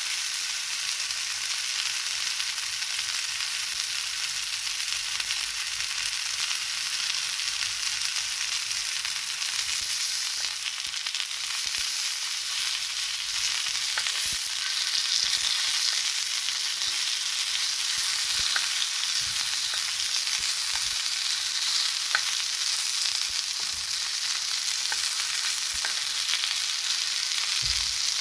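Homemade chicken longganisa sausages sizzling as they fry in hot coconut oil in a pan, a steady high hiss with a few faint clicks as the sausages are rolled over.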